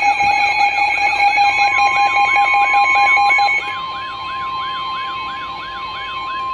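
Weather-alert alarm tones: a warbling siren sweeping up and down about three times a second, over steady alert tones. A steady high tone, typical of the NOAA Weather Radio warning alarm tone that comes before a warning message, joins about a second and a half in.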